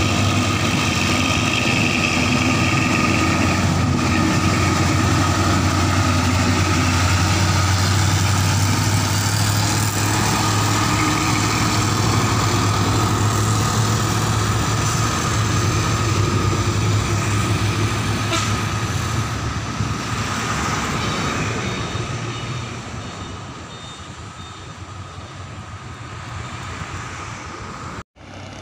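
Diesel engines of two rock-laden dump trucks running side by side under load. They hold a steady deep drone as they pass close, then fade away over a few seconds. The audio cuts out for an instant near the end.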